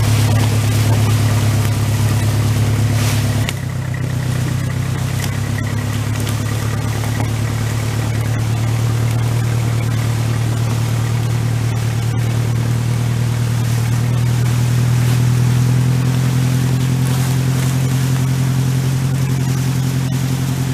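Massey Ferguson tractor engine running steadily under load while skidding a bundle of ash logs, its note holding at an even pitch, with a brief drop in level about three and a half seconds in.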